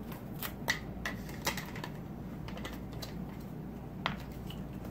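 Irregular light clicks and knocks of a plastic spray bottle being handled and its trigger-spray top being screwed on, with a single sharper click about four seconds in.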